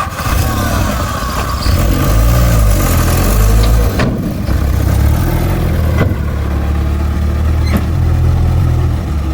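Heavy earthmoving machine's diesel engine running loud and low, building up over the first couple of seconds, with a few sharp metallic knocks.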